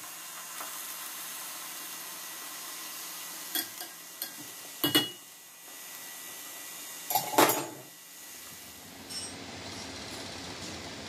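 Steel spoon and stainless steel pot clinking and knocking: a few light taps, then two louder metal clanks about five and seven seconds in, the first ringing briefly. A faint steady hiss sits under them.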